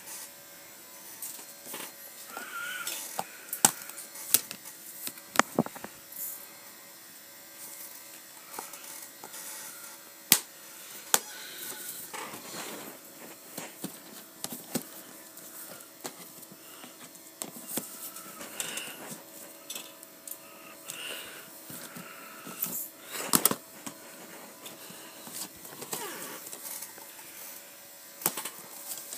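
Plastic DVD cases being handled and pulled out of a box: irregular clicks, taps and clatters, with a faint steady hum underneath.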